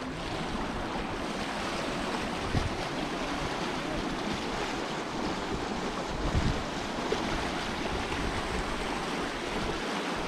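River water rushing steadily past in a continuous wash, with wind buffeting the microphone in low gusts, strongest about two and a half and six seconds in.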